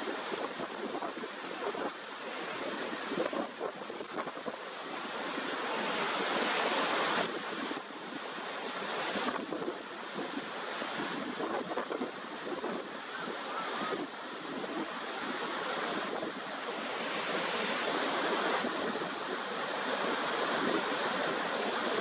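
Niagara Falls: a dense, steady rush of water pouring over the brink and crashing into the plunge pool below, swelling and easing slightly in loudness.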